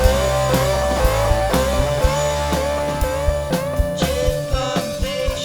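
Rock music with a bending guitar line over a steady drum beat.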